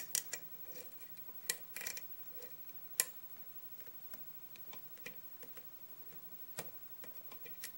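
Metal lock pick clicking against the pins inside an old Yale push padlock's keyway during pin-by-pin picking. Irregular sharp clicks, the loudest about three seconds in.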